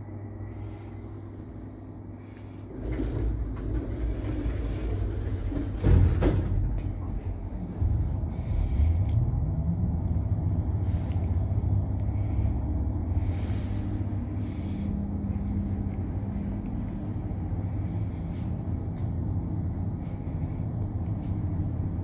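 Passenger lift built in 2011 starting a run. A clunk comes about six seconds in, then the drive's pitch rises as the car gets under way, and after that a steady running hum while the car travels the shaft.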